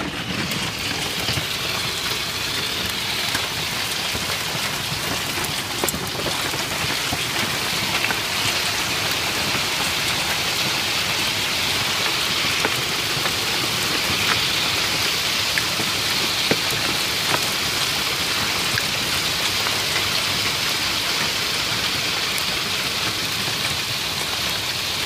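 Hail and rain pelting down in a steady hiss, with scattered sharp ticks of hailstones striking.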